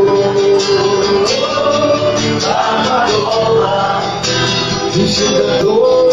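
Christian worship music with strummed guitar under a slow melody line.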